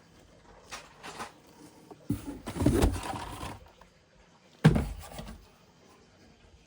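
Handling noises: two light knocks, a longer rattling clatter about two seconds in, then a sharp thump.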